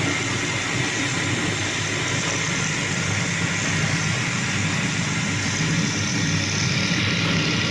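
A machine motor running steadily with a continuous, even hum.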